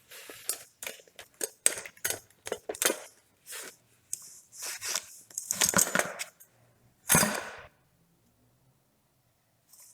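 Small hard parts from a 3D printer kit clinking and clattering as they are handled, in a quick, uneven run of clicks and jingles, with a louder clatter about seven seconds in.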